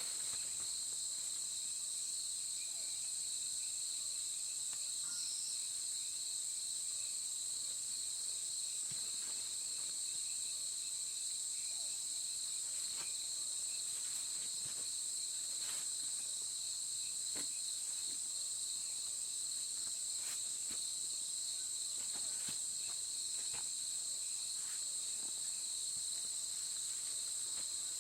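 A steady chorus of insects: a continuous high-pitched shrill drone, with a few faint clicks scattered through it.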